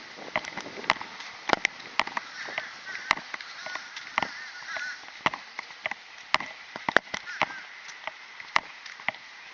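Irregular sharp clicks and knocks, a few a second, over a steady hiss, with faint high wavering chirps behind.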